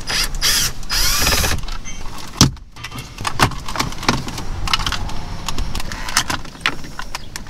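Cordless drill-driver spinning a screw in a Jeep's dash for about a second, with a thin high whine, then a sharp knock and scattered clicks and knocks of dash trim being worked loose by hand.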